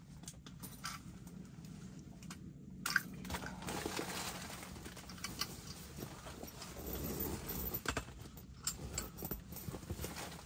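Scattered light knocks, clicks and rustling from things being handled at close range, with one sharper click about three seconds in.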